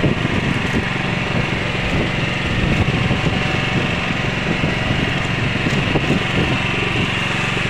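A small engine runs steadily with an even drone aboard a small wooden outrigger fishing boat.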